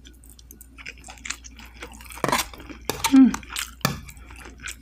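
A fork clinking and scraping against a clear cut-glass plate while scooping up grits, with a few sharp clicks around the middle, amid chewing.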